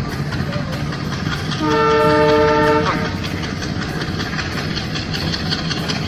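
Toy train running on plastic track with a steady motor whir and a fast, regular wheel clicking. About two seconds in, one horn blast of about a second, a steady chord and the loudest sound.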